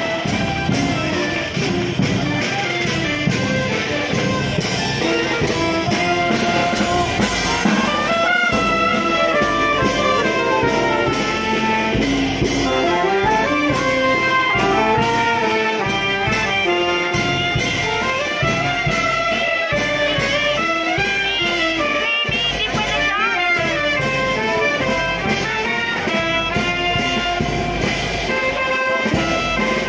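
Marching band playing a tune on brass, saxophones and clarinets over a steady drum beat.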